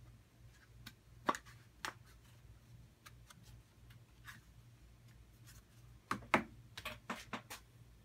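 Wooden puzzle box being handled: sharp wooden clicks and knocks as its parts are moved, two about a second in, then a cluster of louder knocks near the end.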